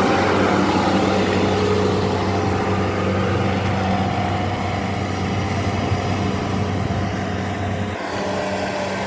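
Kubota combine harvester's engine running with a steady hum as the tracked machine drives along a paved road. The sound gets slightly quieter near the end.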